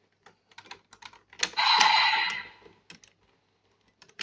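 Plastic clicks and clacks from a DX Decade Driver toy belt being handled and its parts worked, a quick run of clicks at first. About a second and a half in comes a louder noisy electronic sound effect from the belt, lasting about a second, then a couple more clicks.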